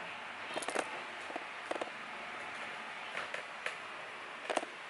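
Light clicks and knocks, about six spread over a few seconds, from things being handled while the refrigerator's compartments are shown, over a steady faint hiss.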